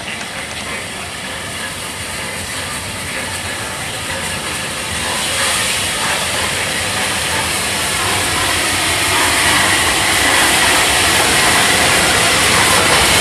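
Two steam locomotives double-heading a passenger train, Bulleid Battle of Britain Pacific 34067 'Tangmere' leading BR Standard 'Britannia' 70000, running into a station with steam hissing. The sound grows steadily louder as they approach and pass close by.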